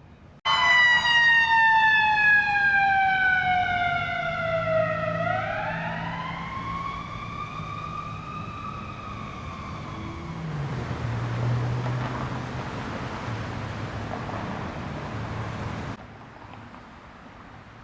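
Emergency vehicle siren wailing: its pitch slides down for about five seconds, swings back up and slowly falls away again. It gives way to traffic noise and a vehicle engine hum that cut off suddenly near the end.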